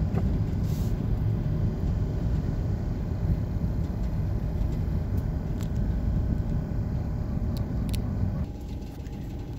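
Steady road and engine rumble heard inside a moving car's cabin, easing off a little near the end.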